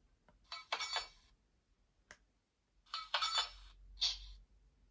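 Coupling-up sound effect from a Bachmann Class 37 model locomotive's factory DCC sound decoder, played through its small onboard speaker: several short clanking, hissing bursts with gaps between them, including one sharp click.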